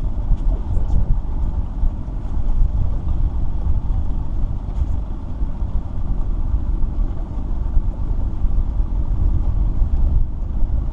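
Steady low rumble aboard a small fishing boat out on the water, with no distinct engine note, and a few faint clicks.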